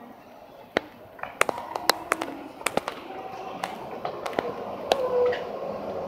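Footsteps: about a dozen sharp, irregular knocks as someone walks across a station platform and steps aboard a stopped commuter train, over the steady hum of the waiting train.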